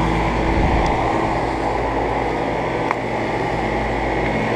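Central air conditioner condensing units running, the two 2010 Carrier 4-ton units: a steady compressor hum with several fixed tones under the rush of the condenser fans. A small tick about three seconds in.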